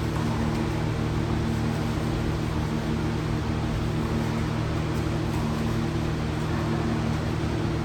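Steady mechanical hum: a low, unchanging drone with a hiss over it, with no starts, stops or changes.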